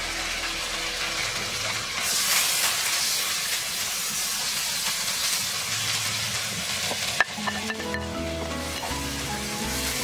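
Chopped garlic, chilli and shallot sizzling in hot oil in a wok while a spatula stirs and scrapes them. A sharp knock comes about seven seconds in, and background music with plain notes comes in near the end.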